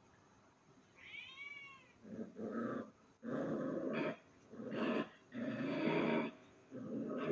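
A domestic cat calling: one short meow that rises and falls in pitch, then five longer, harsher calls in a row, each lasting about half a second to a second.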